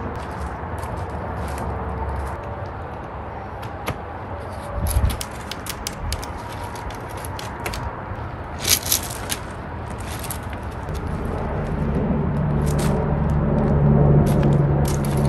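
Tent being pitched: a metal tent pole and its plastic clips clicking and rattling as they are fitted to the tent frame, with the nylon fly rustling. A low steady rumble builds in the background during the second half.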